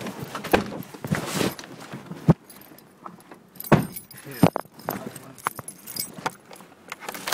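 Keys jangling amid an irregular string of sharp clicks and knocks and rustling, the loudest knock about two seconds in.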